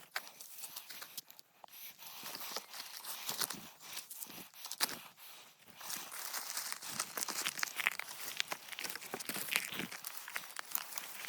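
Dry grass, brush and branches rustling and crackling as they are cut and cleared by hand, with many small irregular snaps and crunches.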